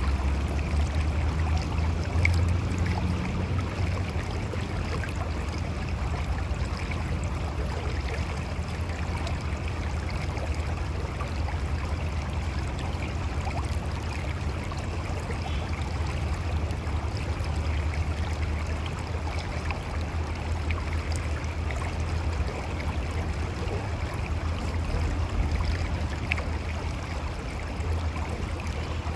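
Mountain river rushing and gurgling over rocks: a steady wash of water with a deep low rumble and small scattered splashes.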